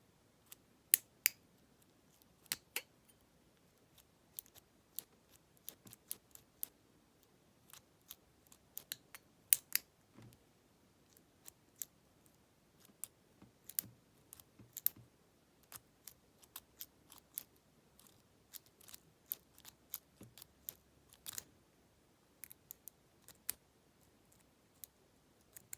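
Irregular sharp metallic clicks and ticks from a pick and shim working inside a Lockwood 570 oval pin-tumbler cylinder as the pins are lifted and the shim is pushed around the core. The work is slow, which the owner thinks may mean master wafers catching on the shim.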